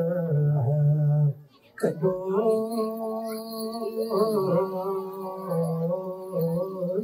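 Voices singing a slow, chant-like Ethiopian Orthodox hymn in long held phrases, with a brief pause about a second and a half in.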